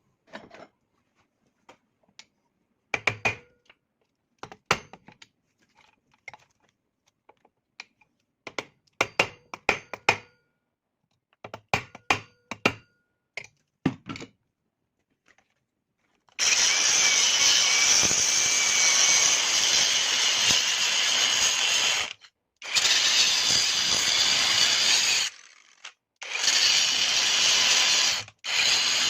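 Scattered short knocks and clinks of tools on metal for about the first fifteen seconds. Then a power tool runs steadily in four runs of a few seconds each, stopping briefly between them.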